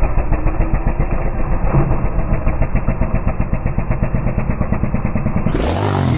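Motorcycle engine running at low revs on a dirt trail, with an even, rapid pulse. It stops abruptly about five and a half seconds in.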